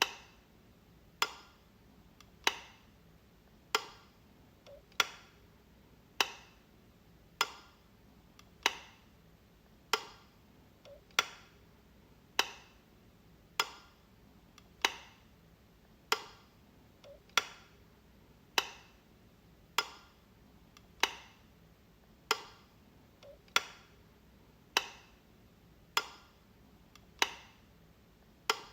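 Light switch clicking, one sharp click about every 1.2 seconds in a steady repeating loop, some clicks with a faint softer tick just before them.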